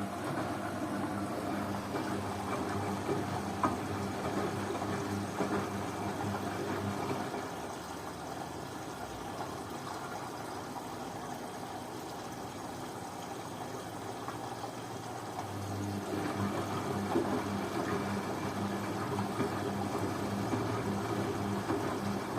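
Beko washing machine partway through a synthetics wash: the motor hums as the drum turns and water sloshes. It goes quieter for several seconds in the middle, then starts up again.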